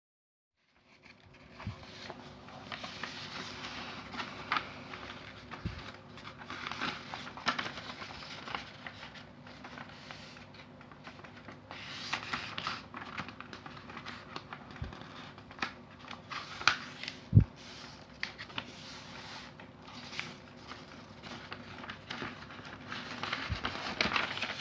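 A sheet of A4 copy paper being handled and folded: irregular rustling and crinkling, with a few thumps, the loudest about two-thirds of the way through.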